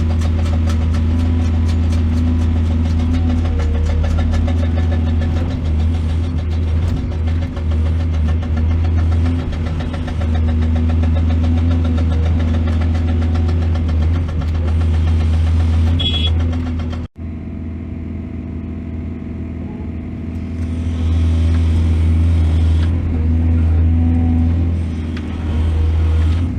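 Heavy diesel engine running steadily with a deep, even hum, cutting out abruptly about 17 seconds in, then carrying on more quietly before rising again.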